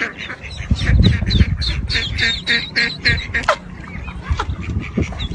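A bird giving a rapid run of short calls, several a second, with a few low thumps about a second in.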